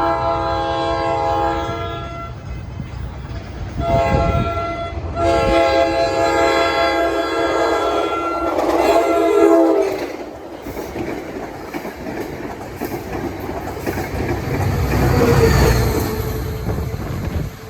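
Metro-North commuter train's multi-note horn sounding a long blast, a short blast, then a longer blast. The train then passes close by, its wheels rumbling and clattering over the rail joints.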